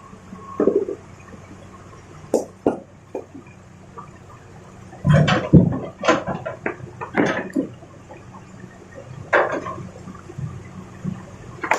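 Excavator running with a steady low hum while rock clatters and knocks in irregular bursts, loudest about five seconds in.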